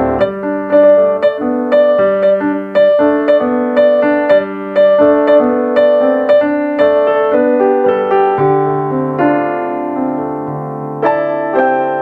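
Background piano music: a slow melody of single notes, with lower bass notes coming in about two-thirds of the way through.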